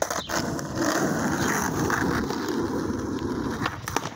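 Skateboard wheels rolling over rough asphalt, a steady rumble. Sharp clacks come at the start as the board goes down, and again near the end as the tail pops for an ollie up onto a concrete curb and the board knocks against it.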